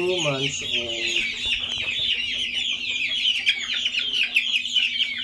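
A flock of young gamefowl chicks peeping nonstop, many short high chirps overlapping, most of them falling in pitch.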